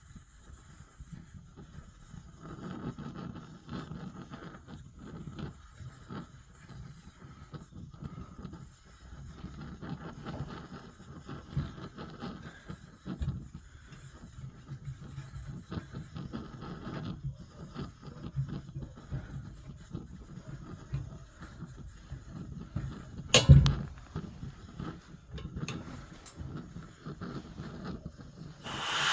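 Petrol pressure stove burning with an uneven, fluttering low rumble, one of its jets blocked. A single sharp knock about 23 seconds in, and near the end a loud steady hiss sets in suddenly.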